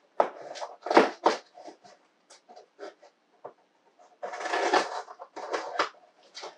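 Heavy cardboard shipping box being handled and opened: a run of knocks and scrapes against the box in the first couple of seconds, a longer rustling scrape about four seconds in, then more knocks.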